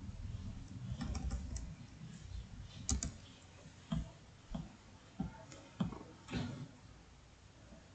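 Scattered clicks of a computer keyboard and mouse: about a dozen irregular, separate keystrokes and clicks.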